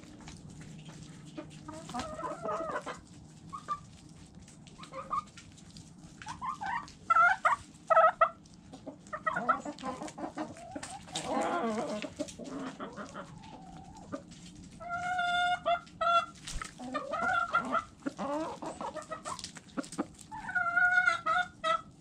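Backyard hens and roosters clucking as they feed, with the sharp taps of beaks pecking at a plastic tray of vegetables and the grain-covered ground. Short runs of quickly repeated clucks come about two-thirds of the way in and again near the end.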